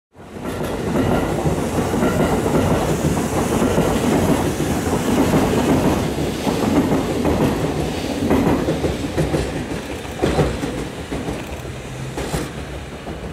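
Passenger train, the Train Suite Shiki-shima, running past on the track: a steady rumble of wheels on rail with clickety-clack from the rail joints. The sound fades as it draws away, with two sharp clacks near the end.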